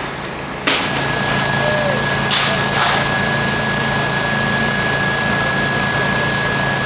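Fire engine's engine running steadily at the fire ground, with a thin, steady high whine above the engine note. It starts abruptly a little under a second in.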